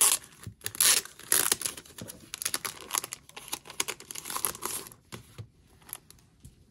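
Clear plastic wrapping crinkling and tearing as it is pulled off a postcard set. A run of crackles, loudest in the first second and a half, fades out about five seconds in.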